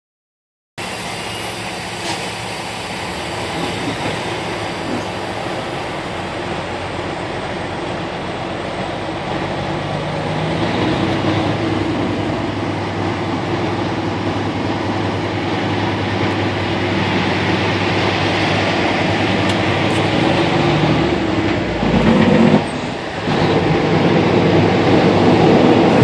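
2006 Peterbilt 379's diesel engine pulling under light load, heard inside the cab, with the turbocharger whistling over it. The engine sound slowly builds and briefly drops off a few seconds before the end, then picks up again.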